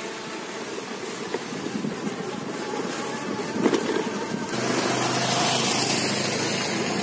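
Wind and road rush while riding an electric bicycle, growing louder about four and a half seconds in, where a low steady hum joins.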